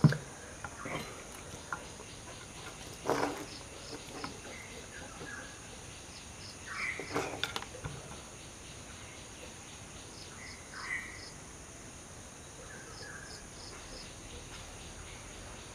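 Quiet workbench room tone with faint, repeated high chirping of birds and insects in the background. There are a few soft knocks and clicks from handling small components, the clearest about 3 and 7 seconds in.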